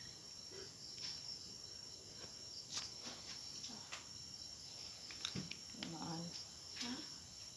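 Crickets trilling steadily in a thin, high, unbroken chirr, with a few faint clicks.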